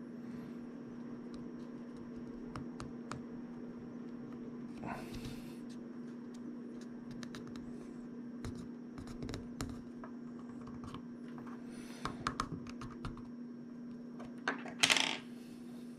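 Light clicks and scratches of a plastic spudger prying at the glued seam of a Sony WF-1000XM4 earbud's shell. There are short scraping rustles about five seconds in and, loudest, just before the end, over a steady low hum.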